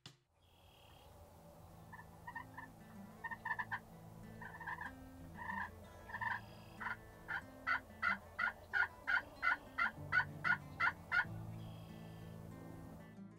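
Hen turkey yelps on a turkey call, made to let nearby turkeys know a hen is there. A few scattered yelps come first, then an even run of about a dozen yelps at roughly three a second that grows louder and stops about two seconds before the end.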